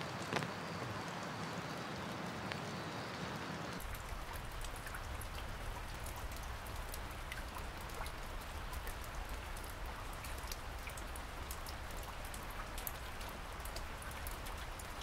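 Steady rain, with many single drops heard as small ticks. About four seconds in it turns denser, with a deeper rumble underneath.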